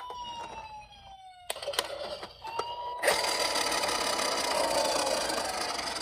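Toy emergency vehicle's electronic siren sounding, its tone sliding down over the first second and a half. A few sharp clicks follow, then about halfway in a loud steady rushing noise starts up under the continuing siren.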